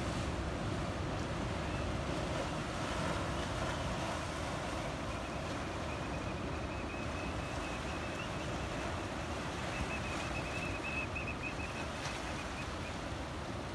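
Pacific surf washing through rocky channels and tide pools, a steady rush of water, with a low rumble of wind on the microphone.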